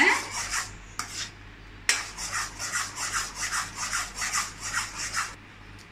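A flat spatula stirring thick mango kesari (semolina cooked with sugar and mango puree) in a wok, scraping and rubbing against the pan in quick, even strokes about three a second, with a brief pause about a second in.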